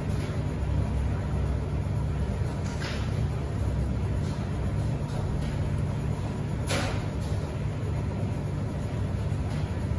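Commercial front-loading washing machine on its final spin: a steady low drone and rumble from the spinning drum and motor, with two brief clicks about three and seven seconds in.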